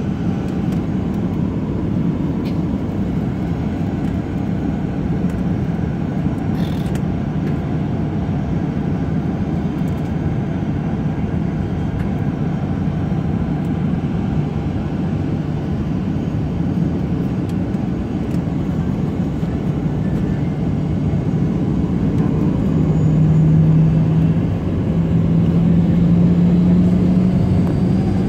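Boeing 737-800's CFM56-7B jet engines idling, heard from inside the cabin as a steady low hum. About 22 seconds in the engine tone rises in pitch and loudness, dips briefly, then rises again as thrust is added to start the aircraft taxiing.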